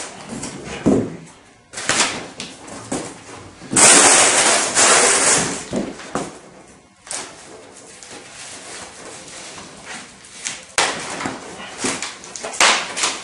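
Rustling and crackling of packing wrap and foam being worked off a new carbon road bike's frame and handlebars by hand. There is a loud stretch of crinkling about four seconds in and a few sharp clicks near the end.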